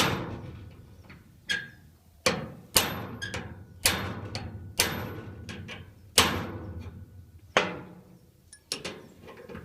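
Hammer blows on a seized steel padlock to jar its stuck cylinder free: about ten sharp metallic strikes, irregularly spaced roughly a second apart, each ringing briefly.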